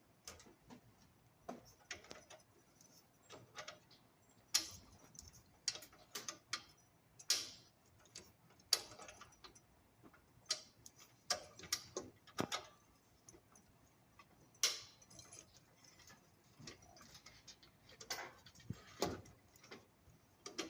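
Irregular sharp clicks and knocks of metal parts and tools being handled while a Jet belt sander is taken apart for a belt change, a few louder knocks among lighter taps.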